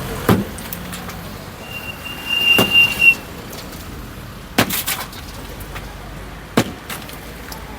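Roadside traffic noise with several sharp knocks at irregular intervals and a brief high, steady squeal about two seconds in.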